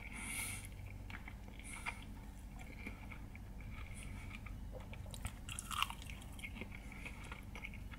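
A person eating a chicken wing: faint chewing, with scattered short clicks from the mouth and teeth.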